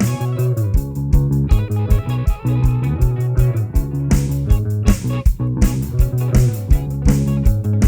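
Background rock music with electric guitar, bass guitar and a steady drum beat.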